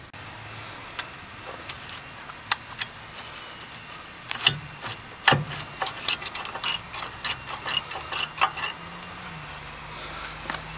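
A Ford Windstar front brake caliper being worked off the rotor and bracket by hand, metal on metal. It gives scattered clicks and clanks, thickest from about four to eight and a half seconds in.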